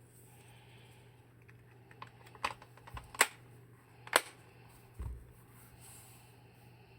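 A handful of separate key presses on the MMD EIF68 aluminium mechanical keyboard with Princess Ultra switches, starting about two seconds in, the loudest two about a second apart. Two dull low thumps come among them, about three and five seconds in.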